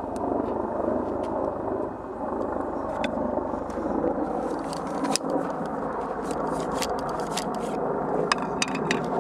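A wooden dowel used as a ramrod scrapes and clicks as it pushes a patched ball down one barrel of a black-powder Howdah pistol. The scrapes and clicks are thickest in the second half, over a steady rushing noise.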